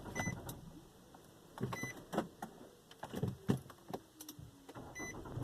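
Short electronic chime beeps and scattered clicks and knocks inside a Nissan Altima as the push-button start is worked. A low steady hum sets in near the end.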